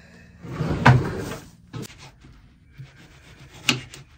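A blunt kitchen knife sawing through a cucumber on a wooden cutting board, a rubbing scrape about a second in, followed by a couple of sharp clicks near the end.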